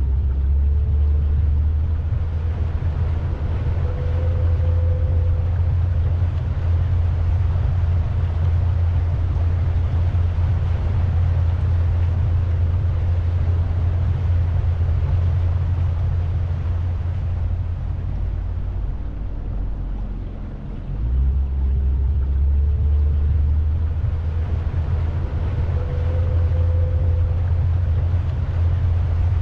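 A tour boat under way, its motor running as a steady low rumble. The rumble eases briefly about twenty seconds in, then picks up again.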